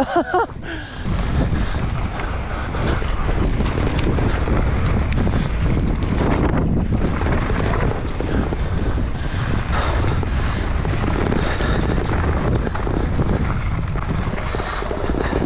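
Wind rushing over the microphone and a mountain bike's tyres rumbling and rattling over a rough, rocky trail on a descent, with scattered knocks.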